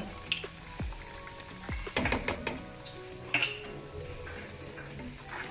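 Metal spoon clinking against a kadhai several times, in a quick cluster about two seconds in and again about a second later, as ginger and garlic paste are added to chicken frying in oil, with a light sizzle underneath.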